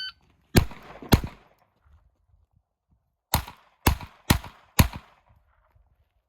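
Gunshots from a 1911 pistol fitted with a .22LR conversion kit. Two shots about half a second apart, then after a pause of about two seconds four more in quick succession, about two a second.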